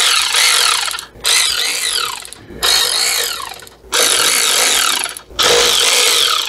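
Cordless ratchet spinning out the transmission oil-pan bolts, running in five trigger bursts of about a second each with short pauses between. The bolts are being loosened to drop the pan and drain the fluid.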